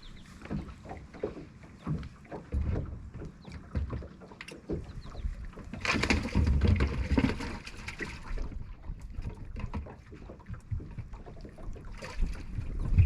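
Irregular knocks and handling noises on a bass boat, with a louder rushing noise for about two and a half seconds in the middle.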